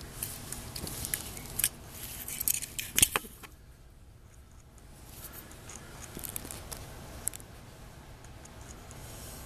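Close-up rustling, scraping and clicking on the phone's microphone as a young kitten noses and paws at it. The clicks are thickest in the first three seconds, with the loudest one about three seconds in, then a quieter spell before more scattered rustles.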